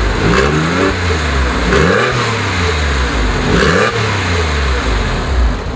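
2003 Porsche 911 Carrera 4's 3.6-litre flat-six revved at a standstill through its dual exhaust, the pitch rising and falling back with each of several throttle blips.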